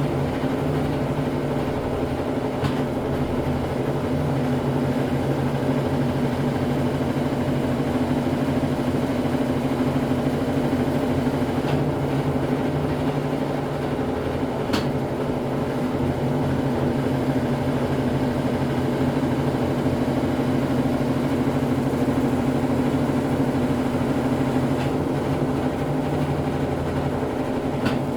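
Brastemp Ative 11 kg (BWL11) top-loading washing machine spinning at a steady speed in its intermediate spin: a constant, even motor-and-drum hum, with a few faint clicks.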